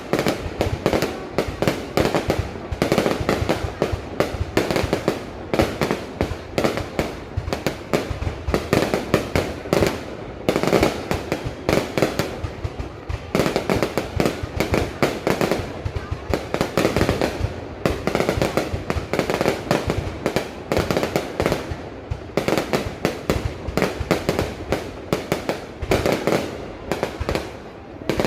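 Fireworks display: many loud bangs from bursting fireworks in quick, uneven succession, going on without a pause.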